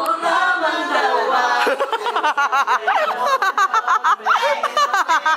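Voices singing along for the first second or two, then hard, rapid laughter in quick bursts.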